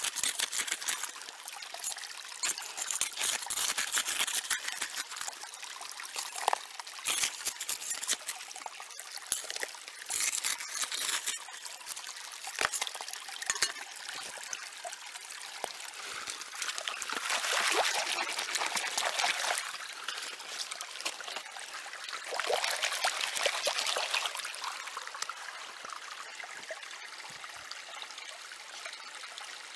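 Creek gravel and dirt scooped by hand into a plastic gold pan, stones rattling and scraping in many quick clicks through the first half. Then water swishes loudly twice as the pan is worked in the shallow creek, over the steady trickle of the stream.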